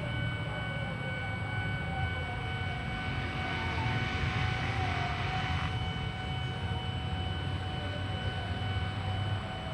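A train passing, heard as a steady low rumble, with a rushing hiss swelling in the middle and cutting off about six seconds in.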